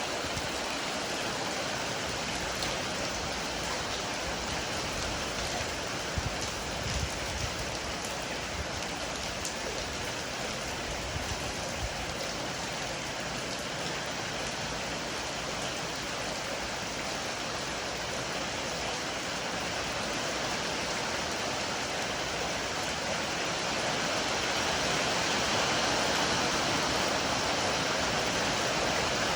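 Heavy rain pouring steadily as an even, dense hiss, with a few brief low thuds in the first half and the downpour growing a little louder near the end.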